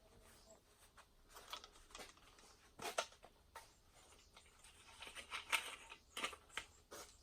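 Faint, irregular rustling and light clicks of work gear being handled, with one sharper click about three seconds in.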